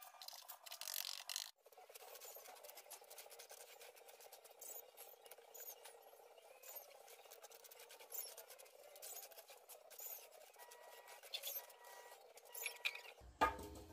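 Faint scraping and clicking as wooden blocks are set into the stove liner and a trowel works the wet cement. Near the end a rooster starts crowing, the loudest sound here.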